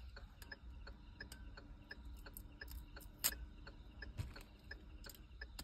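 Faint, irregular small clicks and ticks of the plastic screw cap being twisted off a bottle of 8PM whisky, with one sharper click about three seconds in.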